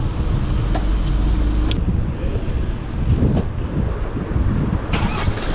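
Wind rumbling on an action camera's microphone while cycling, over the sound of passing road traffic. A couple of sharp clicks come through, one in the middle and one near the end.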